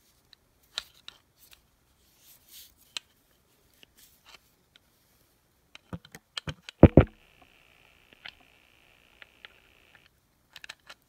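Grease gun pressed against the opened head of a 1950s Western Auto Wizard ratchet while it is greased: scattered small metal clicks and scrapes, a cluster of loud clicks about six seconds in, then a steady hiss for about three seconds.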